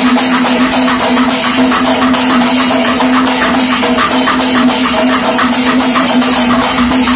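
Panchavadyam temple ensemble playing: timila and maddalam drums and ilathalam cymbals strike in a fast, even beat over a steady held note from kombu horns.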